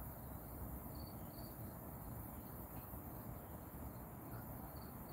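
Faint outdoor ambience with short, high insect chirps in small groups, cricket-like, a couple about a second in and several more near the end, over soft low background noise.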